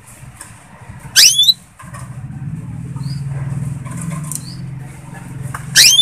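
Canary calls: two loud, quick sweeping chirps, about a second in and again near the end, with a few softer short chirps between. A steady low hum runs underneath.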